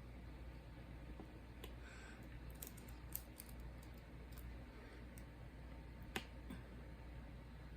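Faint, scattered small clicks and taps from handling things at close range, the sharpest about three and six seconds in, over a steady low hum.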